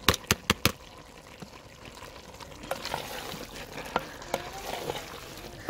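Curry simmering and sizzling in a clay handi while a wooden spoon stirs it, with a few sharp clicks in the first second.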